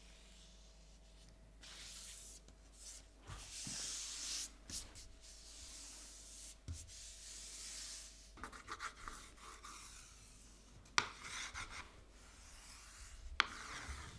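Brown gummed paper being rubbed down by hand: a faint, scratchy rubbing comes and goes for several seconds, followed by crinkly paper handling. Two sharp clicks come near the end, the first of them the loudest sound.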